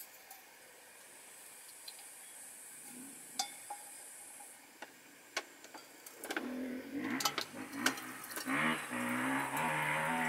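Filtered creek water running from a hanging bottle's screw-on water filter into a cup, starting about six seconds in, after a few handling clicks.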